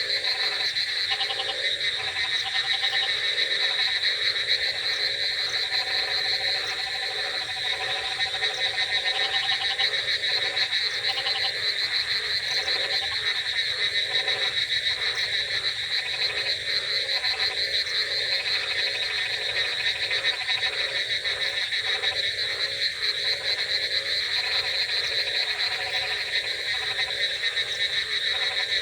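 A dense night chorus of many frogs croaking at once, their rapid pulsed calls overlapping in a continuous wall of sound.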